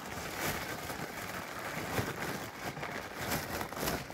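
Close, continuous rustling and handling noise with a few soft clicks scattered through it.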